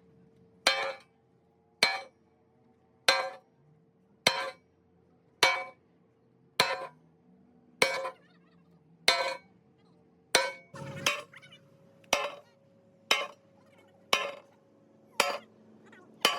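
Metal being struck at a steady pace, about one blow every 1.2 seconds, each a sharp clink that rings briefly; a few blows come closer together about eleven seconds in.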